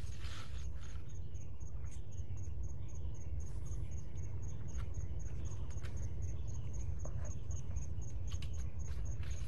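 Insect chirping steadily in a regular high-pitched pulse, about three a second. Under it are a low steady rumble and scattered light clicks and rustles.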